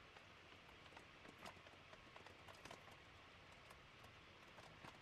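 Near silence, with a few faint, light clicks and taps from hands working on a tenor saxophone's upper-stack keys.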